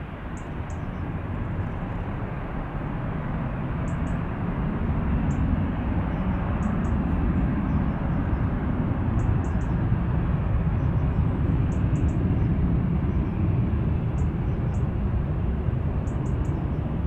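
Airbus A330-200's twin jet engines at takeoff thrust as it climbs away, a broad roar that grows louder over the first few seconds and then holds as a deep rumble.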